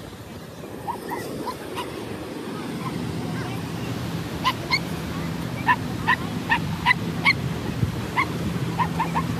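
A small dog yapping in short, high barks, sparse at first and then a quick run of them from about halfway through, over the steady wash of surf.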